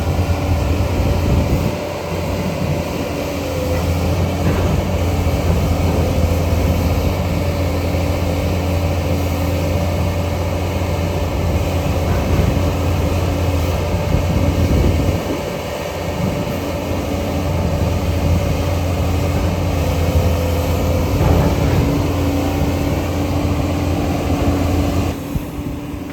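Diesel engine of a JCB 245 HD LR long-reach excavator running steadily under load with a low hum, easing off briefly about two seconds in and again around fifteen seconds in.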